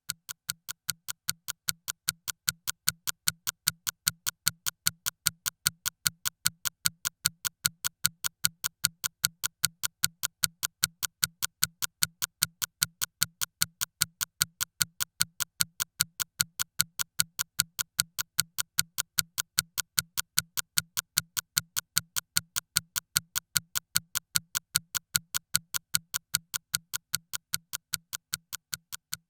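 Clock ticking steadily, about four ticks a second, each tick a sharp click with a low knock beneath it.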